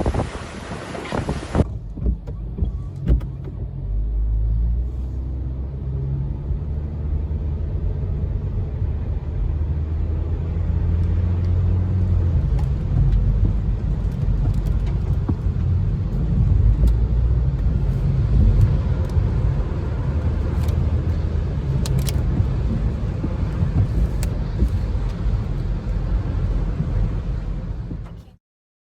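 A car running, a loud steady low rumble with scattered sharp ticks, after a brief rushing hiss in the first couple of seconds. The sound cuts off abruptly near the end.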